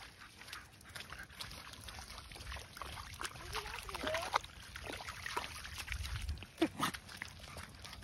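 A Staffordshire bull terrier splashing and pawing in a muddy puddle with its face down in the water, with a few short whines in between.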